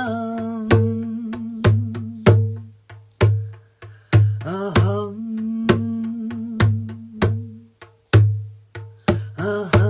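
A woman chanting long held tones with swooping rises into each new note, over a drum beaten in a steady rhythm, as a throat-chakra sound-healing chant.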